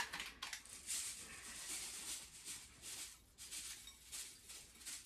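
Panko breadcrumbs shaken out of a cardboard canister into a bowl: a faint, dry rustling patter of small ticks that comes and goes in short runs.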